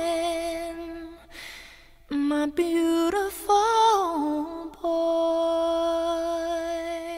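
Soft background music: a voice humming a slow, lullaby-like melody in a few held notes, ending on one long note that fades out near the end.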